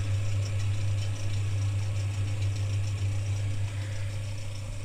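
Samsung WF front-loading washing machine running its EcoBubble service test, with the bubble generator on and the drum turning slowly: a steady low hum.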